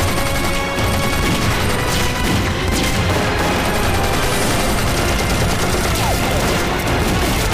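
Battle sound effects: continuous rapid gunfire with occasional explosions, laid under background music.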